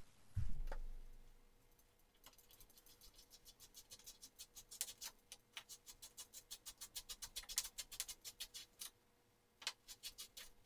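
Rapid, regular faint clicking, about six or seven clicks a second, growing louder: a tapered hand tool being twisted into a small hole in the fuselage skin to widen it. It breaks off briefly near the end, then a few more clicks follow, with a soft low thump just after the start.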